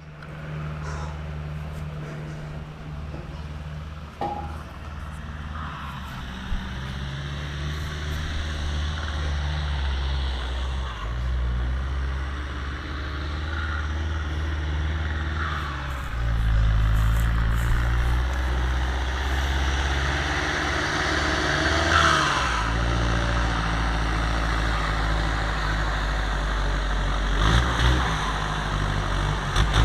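Massey Ferguson 4275 tractor's four-cylinder turbo diesel engine running under load with a 5,000-litre tank. It runs steadily and gets louder about halfway through.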